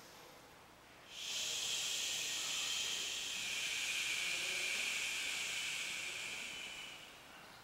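A person's long, steady hissing exhale, the breath out cued for pressing the first abdominal massage point. It starts about a second in and fades out about six seconds later.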